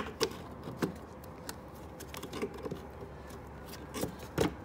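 Scattered small clicks and knocks of hands working a little pin back into an open metal alarm panel, done one-handed.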